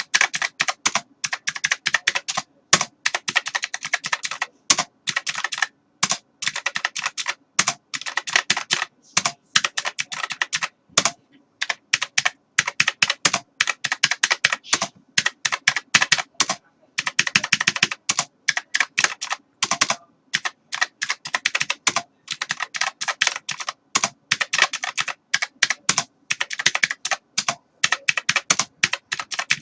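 Computer keyboard being typed on rapidly: dense flurries of clicking keystrokes broken by short pauses.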